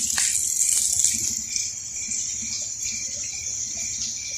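Heavy rain falling, a steady hiss. A faint high chirp repeats about twice a second through it.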